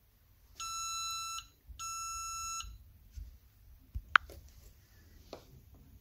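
Two long electronic beeps, just under a second each and a short gap apart, both at the same steady pitch, followed by a few faint clicks.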